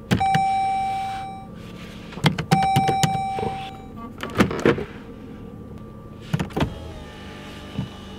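A car's dashboard chime sounds twice, each a steady tone about a second and a half long, as the engine is switched off with the push-button START/STOP switch. Sharp clicks come with the button presses, and more clicks follow from the gear selector.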